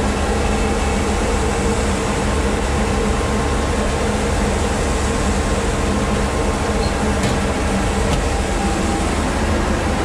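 Steady, loud drone of grain-drying equipment running: the corn dryer and grain-bin fans, with a low hum and a few steady tones.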